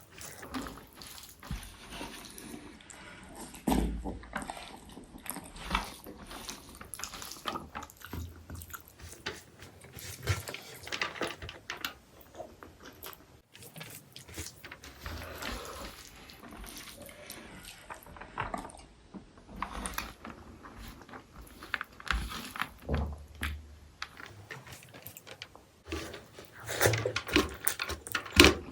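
Close-miked eating sounds of a meal of rice and egg curry: wet chewing and mouth smacking in an irregular run of clicks, with a louder cluster of bites near the end.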